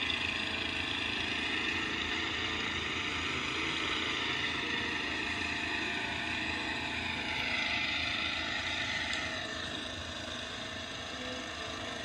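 Ride-on lawn mower engine running steadily as the mower is driven across the lawn; its pitch slowly falls over several seconds in the middle.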